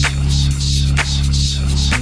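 Electronic dance music: a steady kick-drum beat over a deep, held bass note.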